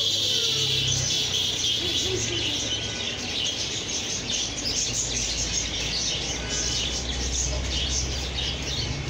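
Many small birds chirping busily and without pause, over a low steady hum.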